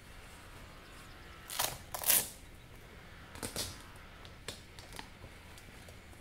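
Asics Gel-Fratelli sneakers being handled and laced: a few short rasps of laces and the shoe's strap and upper, the loudest about two seconds in, then a couple of light clicks and taps.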